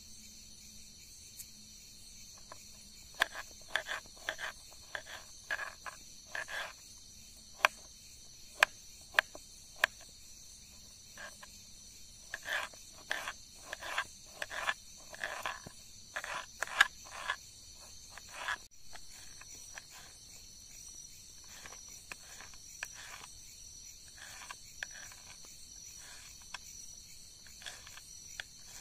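Kitchen knife chopping small red onions and green chillies on a wooden cutting board: irregular sharp taps of the blade on the board, thickest in the first half and lighter later. Crickets chirr steadily behind.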